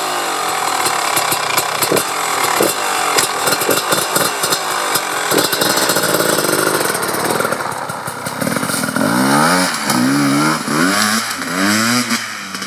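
Beta RR 300 single-cylinder two-stroke enduro engine with a full FMF exhaust running with a rapid, uneven crackle at low revs as the bike pulls off, then revving up and dropping back several times in the last few seconds as it accelerates away.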